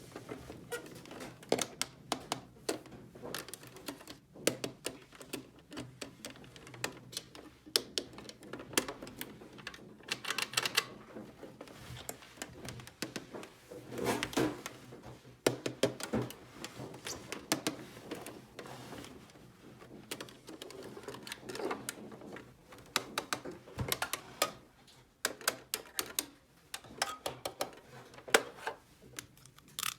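Small hard plastic toy pieces clicking and tapping as they are handled and set down, in irregular runs of sharp clicks.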